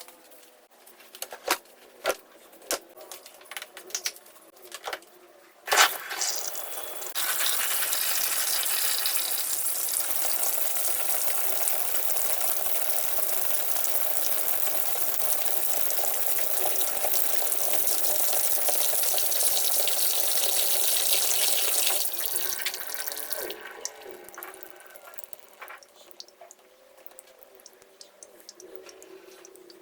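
Water running hard from a tap into a twin-tub washing machine's tub to fill it, a steady rush that lasts about fifteen seconds and then tapers off as it is shut. Before it starts there are scattered clicks and knocks, with one sharp knock just before the water comes on.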